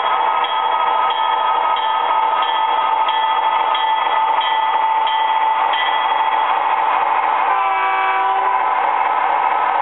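MTH O-scale Conrail SD40-2 model locomotive running past with its Proto-Sound 2.0 speaker playing diesel engine sound and a bell ringing about one and a half strikes a second until about six seconds in. Near the end comes a short horn blast of several tones at once.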